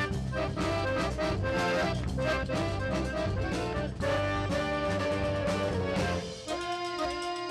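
Live band music led by a piano accordion, over a steady bass line and beat. About six seconds in, the bass and beat stop, leaving a few held notes.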